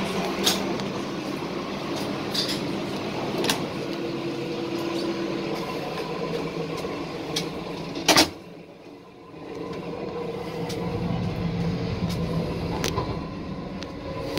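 Interior running noise of an ADP class diesel railcar in motion: a steady hum with scattered clicks and rattles. About eight seconds in a door bangs shut, and the running noise drops to a muffled level, then slowly builds again.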